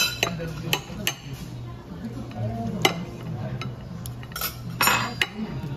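Steak knife and fork clinking and scraping on a ceramic plate while cutting through barbecue baby back ribs: several sharp clinks in the first three seconds, then a longer scrape near the end.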